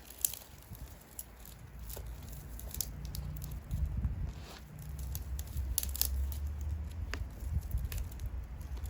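Wood bonfire crackling, with irregular sharp pops and snaps of burning wood over a steady low rumble.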